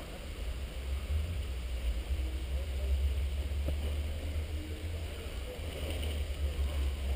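Wind buffeting the camera microphone: a low, gusty rumble that swells and fades.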